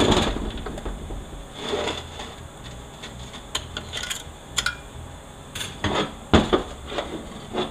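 Metal transmission parts from a 4L80E direct drum being handled on a bench: scattered light metallic clicks, clinks and knocks, with a sharp knock right at the start and a cluster of clicks from about three and a half to six and a half seconds in.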